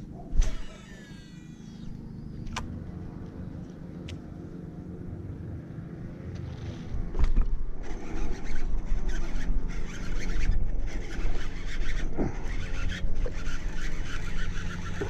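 Steady low hum of a boat's motor as the boat turns slowly on the lake, with a sharp knock just after the start. From about seven seconds in, louder rough gusting noise, like wind or water buffeting the microphone, joins the hum.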